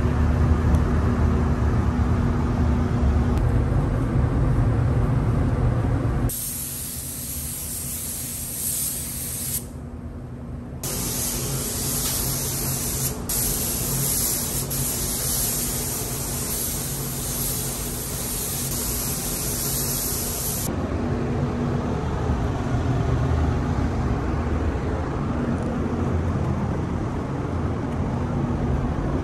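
A paint spray gun hissing in two bursts of spraying: about three seconds, a brief stop, then about ten seconds more. A steady low rumble fills the stretches before and after the spraying.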